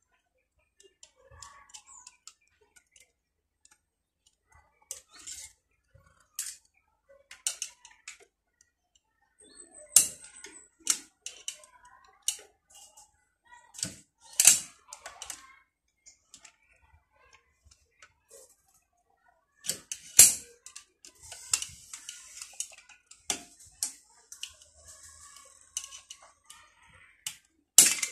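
A screwdriver tip prodding and scraping at a small black plastic lock clip inside a DNP DS-RX1 photo printer's roller assembly: scattered sharp clicks and taps of metal on plastic and metal. A stretch of scraping comes about three quarters of the way through, and a louder snap near the end as the clip pops free.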